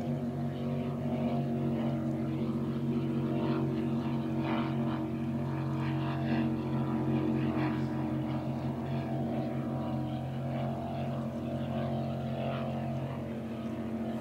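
A motorboat engine running steadily.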